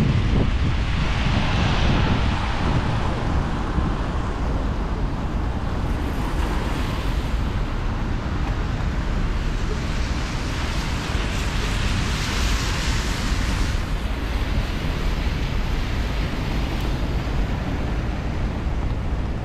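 Rainy city street ambience with wind rumbling on the microphone. A hiss swells and fades twice, about two seconds in and again between ten and fourteen seconds: vehicles passing on wet pavement.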